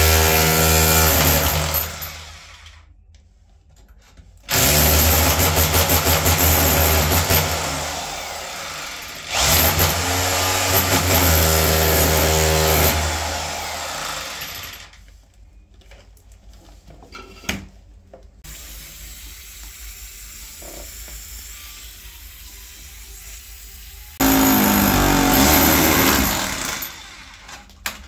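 Electric power tool run in four loud bursts of a few seconds each, working into a tiled wall to expose a leaking water pipe, with a few knocks in the quieter gaps.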